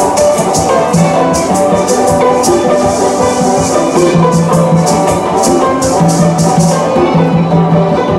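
Small live band playing: accordion, banjo and a tall hand drum, with a shaker keeping a steady beat and a low bass note sounding now and then.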